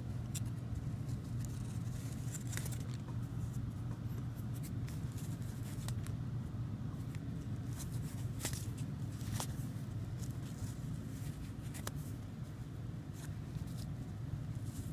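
A few light clicks and rustles of small paper-and-card items being handled, most likely View-Master reels and their sleeves, spaced several seconds apart over a steady low hum.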